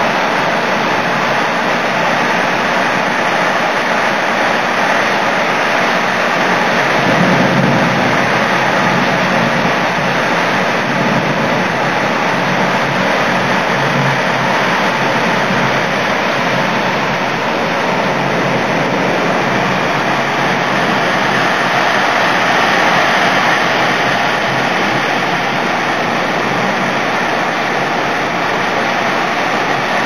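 Heavy thunderstorm downpour: a loud, steady rush of pouring rain that swells slightly about seven seconds in.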